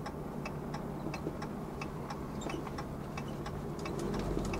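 Vehicle turn signal clicking steadily, about three ticks a second, inside the cab over low engine and road noise, as the vehicle turns off the road.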